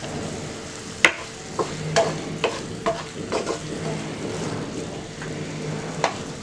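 Halved fresh figs sizzling in a non-stick frying pan. A wooden spatula stirs them and knocks against the pan several times in the first half, then once more near the end.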